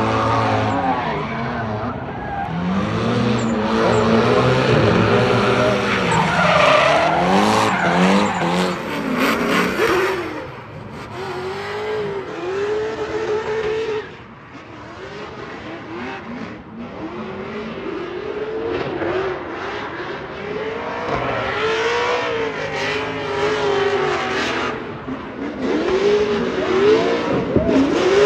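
Drift cars sliding around a track, their engines revving up and down over and over with tyres squealing and skidding.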